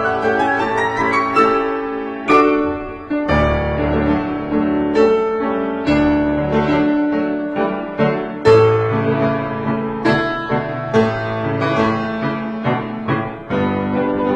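Background piano music, a run of struck notes that ring and fade.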